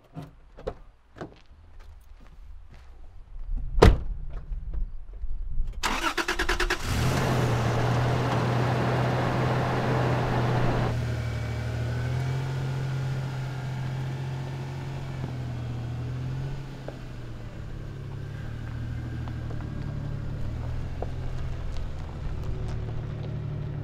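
A pickup door shuts with a sharp thud about four seconds in. About two seconds later the starter cranks rapidly for about a second, and the Toyota Tacoma's engine catches, running at a raised idle that drops to a lower, steady run about four seconds later as the truck drives off.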